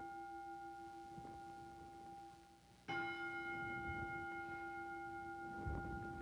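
A single altar bell struck twice, ringing at the consecration of the bread. The first ring dies away, and a fresh strike about three seconds in rings out with a long, clear decay.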